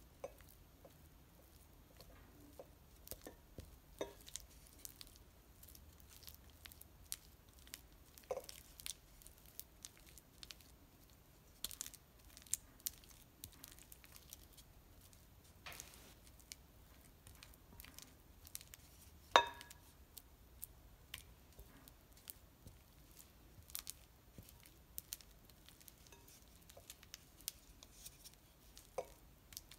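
Silicone spatula creaming softened butter in a glass mixing bowl: faint, irregular squishing and scraping against the glass, with one sharper click about two-thirds of the way through.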